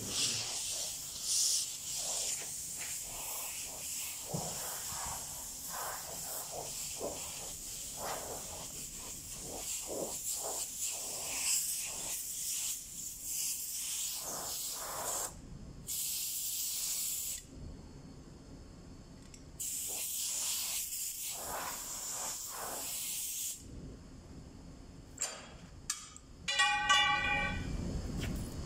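Compressed-air blow gun hissing in repeated blasts as it blows dust out of a truck's cylindrical air filter element. The air cuts off for about two seconds past the middle and stops a few seconds before the end. A short high-pitched squeal comes near the end.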